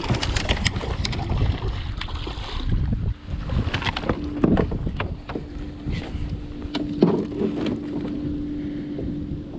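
Wind buffeting the microphone, with scattered clicks and knocks of a fishing rod and kayak being handled as a largemouth bass is brought aboard. A steady low hum sets in about four seconds in.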